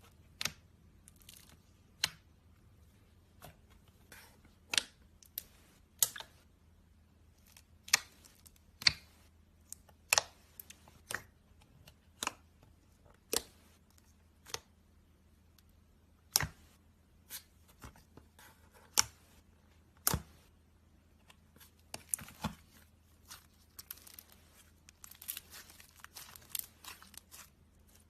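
Slime being squeezed and poked, giving a series of sharp, irregular pops and clicks about a second apart, then a quicker run of small crackles near the end.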